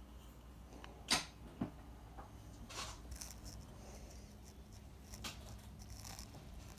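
A few faint clicks and knocks over a low steady hum, the sharpest about a second in and a smaller one just after.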